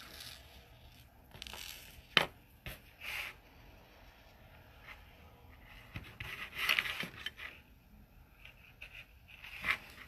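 Small handling noises of beads and beading wire being worked by hand on a tabletop: light scraping and rustling, with one sharp click about two seconds in.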